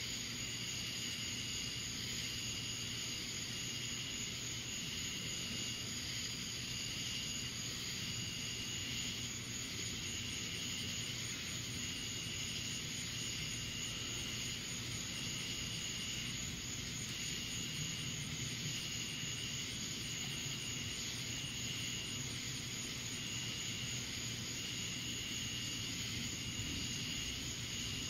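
Night-time insect chorus: steady high-pitched droning with a high call pulsing about once every second and a half, over a steady hiss.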